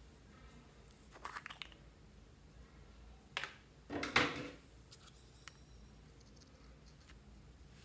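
Quiet handling of a small plastic lipstick pot and a pair of scissors: a few light clicks a little after a second in, a sharp click, then a brief louder scrape about four seconds in.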